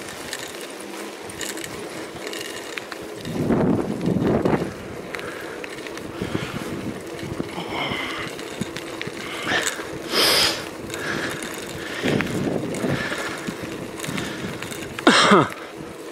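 Bicycle being ridden along a tarmac road: steady rolling noise from the tyres and the bike, with a few louder bursts a few seconds in, midway and near the end.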